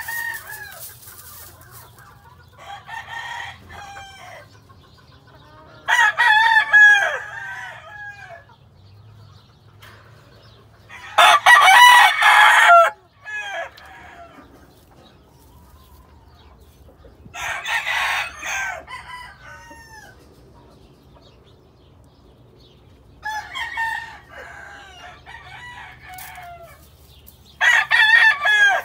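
Game roosters crowing, about six crows spaced several seconds apart, each lasting one to two seconds; the loudest comes about eleven seconds in.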